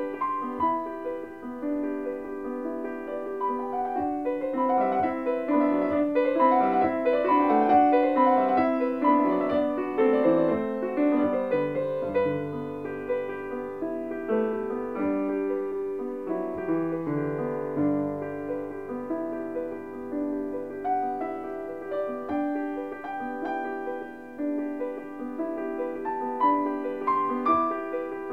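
Background piano music: a flowing melody of many notes over lower sustained notes.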